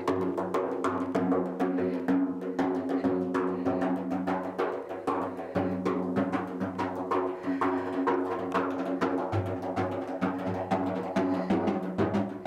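Large hammered bronze gong played with rapid, repeated mallet strokes, its low hum and shimmering overtones ringing on continuously beneath the strikes.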